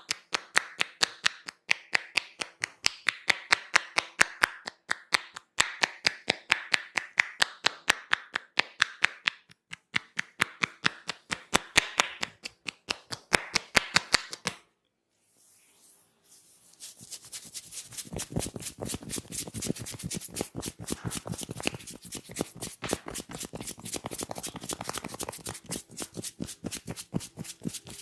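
Rapid, rhythmic hand tapping on the head during a head massage, several sharp claps a second. It stops about fifteen seconds in, and after a short pause a quicker, quieter crackling patter of hands working the hair and scalp takes over.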